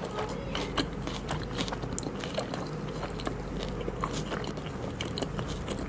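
Close-up eating sounds: someone biting and chewing crunchy food, a dense run of sharp crunches and wet clicks, several a second.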